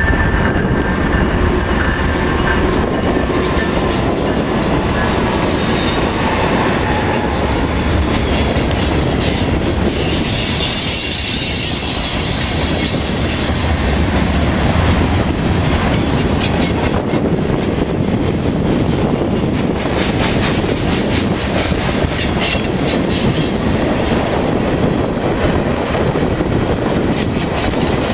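Diesel freight train passing close by: the locomotives go past, then a long string of open-top hopper cars rolls by with the steady clickety-clack of wheels over rail joints. A high wheel squeal rises about ten seconds in and lasts a few seconds.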